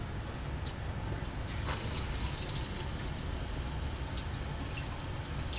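Ammonium chloride solution dripping from a separatory funnel into the stirred flask, quenching a phenylmagnesium bromide Grignard reaction: a few faint, irregular drip ticks over a steady low rumble.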